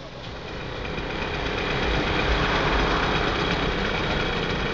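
Tram passing close by: its running noise swells to a peak about halfway through, then slowly fades.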